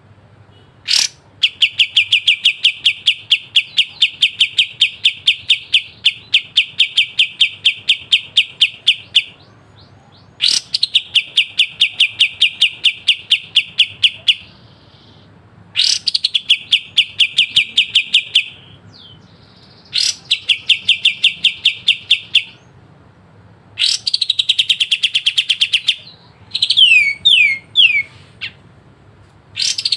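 Kapas tembak bulbul singing sharp, rapid rattling trills, its 'besetan': bursts of fast repeated notes lasting a few seconds each, every burst opening with a sharp rising note. A few quick falling whistled notes come near the end.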